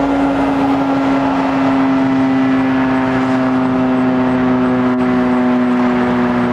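Federal Signal STH-10 outdoor warning siren sounding its noon blast: one loud, steady wailing tone whose pitch sinks slightly.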